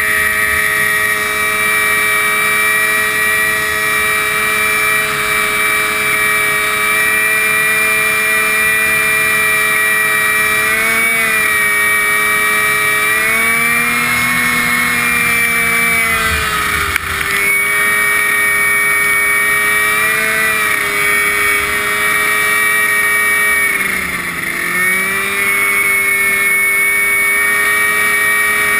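Riding lawn mower engine with a tall straight exhaust stack running steadily at high speed. Its pitch sags and recovers about eleven seconds in, again for a few seconds in the middle, and once more near the end, as the engine speed drops briefly and comes back.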